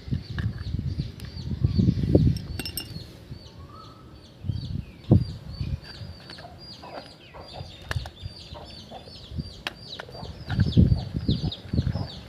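Many small birds chirping rapidly and continuously, with low rustling and a few knocks underneath.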